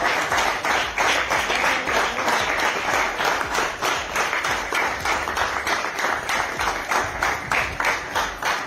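Applause: a group of people clapping, a dense run of many hand claps.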